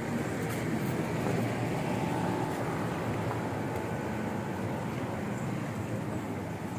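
Wind blowing across a phone's microphone: a steady, rough low noise with no breaks.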